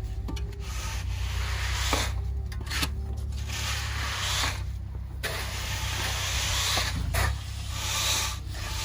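Tools scraping and dragging through wet concrete in a series of swishing strokes as it is spread, over the low steady running of the concrete truck's engine.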